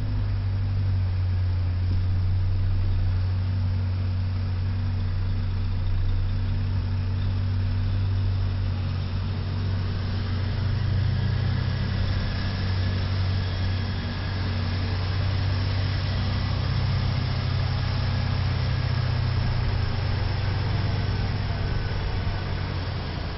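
Heavy tow truck's diesel engine running steadily close by, a low drone that rises a little in pitch about ten seconds in as the wrecker moves off hauling the damaged box truck.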